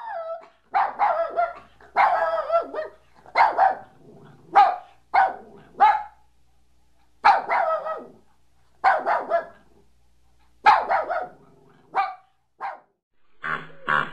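A dog barking repeatedly, mostly in quick runs of two to four barks with short pauses between them.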